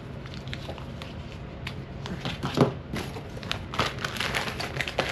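Packaging being handled: crinkling and rustling with scattered small clicks and knocks, loudest about two and a half seconds in.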